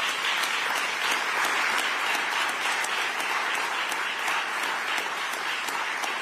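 Audience applauding: many hands clapping in a steady, even wash of sound.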